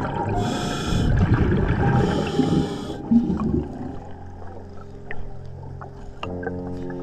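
A scuba diver breathing through a regulator, heard underwater: two short hissing breaths in the first three seconds over the rumble of exhaled bubbles, which dies down after about four seconds. Steady layered tones come in near the end.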